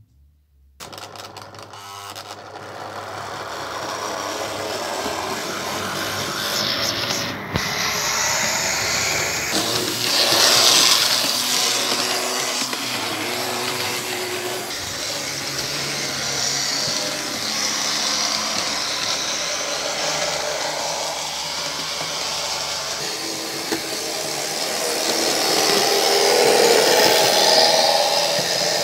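HO-scale model railcar running on the layout: the small electric motor and the wheels on the track make a steady mechanical noise that starts about a second in, with a few quick clicks at first, and grows louder twice as the railcar passes close.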